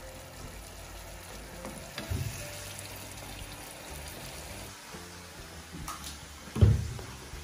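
Shrimp in tomato sauce sizzling in a nonstick frying pan while a plastic slotted spatula stirs it, with a knock about two seconds in. Near the end, a single loud low thump.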